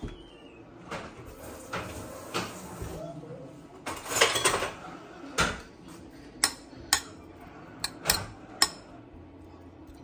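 Metal spoon knocking and scraping against a stainless steel pot while raw pork pieces are moved around, about ten separate clinks with a busier stretch about four seconds in.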